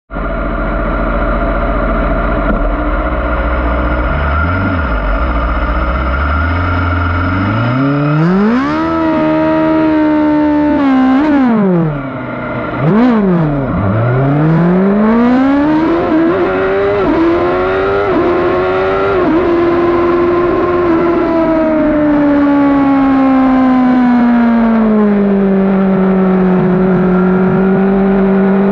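A 2012 Yamaha R6's 600 cc inline-four engine heard from the rider's seat. It runs at a steady low note on the start grid, then revs climb sharply about seven seconds in as the bike launches. Near the middle the revs drop sharply and briefly, then rise again through a series of quick upshifts, and later fall off for a few seconds before holding steady at a lower pitch.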